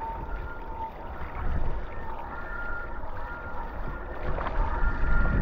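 Wind rushing over the microphone and water hissing around the hydrofoil mast of a SUP foil board riding over open-ocean swell, with faint whistling tones coming and going; the rush grows louder near the end.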